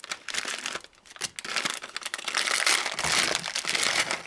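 Plastic wrapper of an instant-noodle packet crinkling as it is handled and emptied into a plastic container, with a short lull about a second in.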